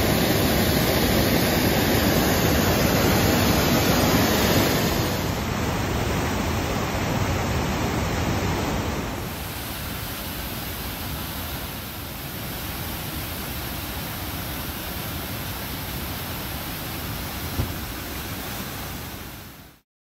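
Muddy floodwater of a storm-swollen creek rushing and pouring over a washed-out bank, a steady noise that is loudest over the first five seconds and steps down about five and nine seconds in. One brief tap near the end.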